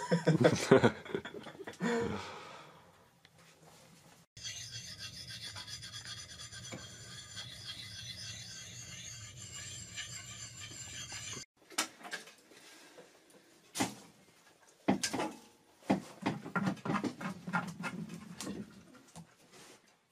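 A steady rasping scrape that starts and stops abruptly and lasts several seconds, then a run of shorter separate scrapes and knocks.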